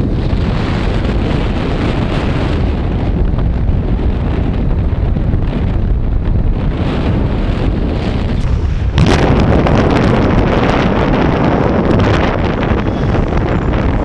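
Wind rushing over the microphone of a camera on a moving motorcycle: a steady, dense rumble and hiss that grows louder about nine seconds in.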